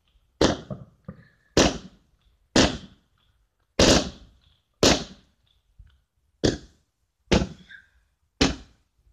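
Fireworks firing one after another: about eight sharp bangs, roughly a second apart, each trailing off briefly, with one fainter pop in between.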